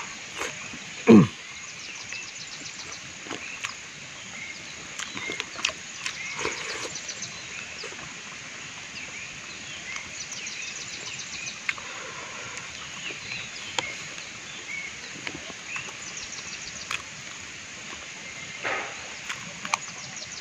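Outdoor ambience with animal sounds: high chirping that comes and goes, scattered small clicks, and one loud, short call falling sharply in pitch about a second in.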